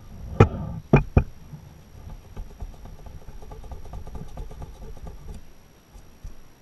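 Hand tool and small metal parts knocking sharply against an Aprilia SXV engine crankcase three times in the first second or so, then light, rapid scraping and ticking as the tool works along the case.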